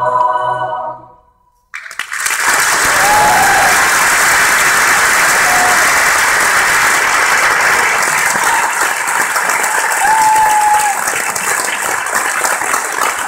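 A choir's final held chord dies away, there is a moment of silence, and then the audience applauds loudly and steadily, with a couple of short calls from the crowd.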